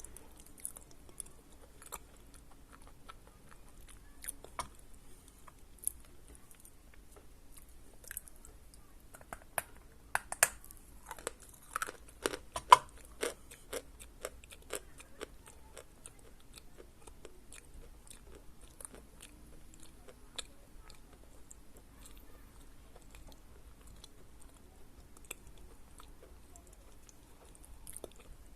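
A person chewing a lump of Khrapovsky natural chalk, dry and crunchy. The crunches come thickest and loudest about ten to fifteen seconds in, then thin out to fainter chewing.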